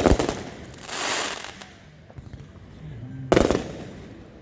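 Fireworks going off: a sharp bang at the start, a crackling hiss swelling about a second in, and another loud bang a little after three seconds.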